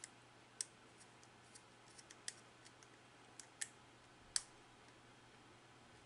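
Small screwdriver clicking against the terminal screws and plastic housing of a push-button contact block as wires are fastened to it: about a dozen sharp, irregular little clicks, the loudest a little over four seconds in, over quiet room tone.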